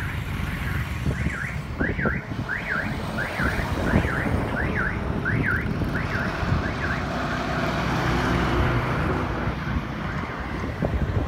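Highway traffic and wind noise, with an electronic alarm or siren warbling in repeated rising sweeps, about one and a half a second, that dies away a little past halfway.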